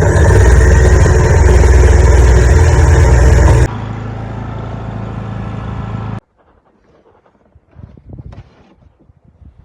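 A loud motor running steadily, dropping to a lower level after about three and a half seconds and then cutting off abruptly, followed by faint scattered knocks.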